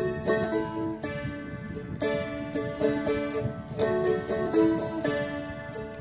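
Seagull Merlin M4, a four-string dulcimer-style instrument, strummed in D with its drone strings ringing. A quick descending run of melody notes is picked over the drone, repeated a few times.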